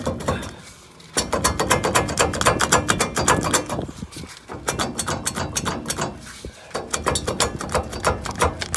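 Ratchet wrench clicking rapidly, about ten clicks a second, in three runs broken by short pauses.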